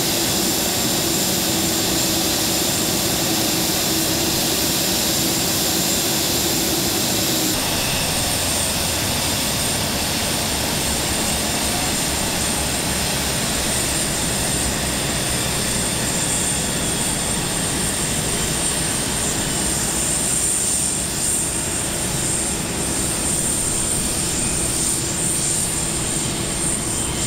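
Jet aircraft noise: a steady high whine over a broad rushing rumble. The mix of tones shifts about seven and a half seconds in.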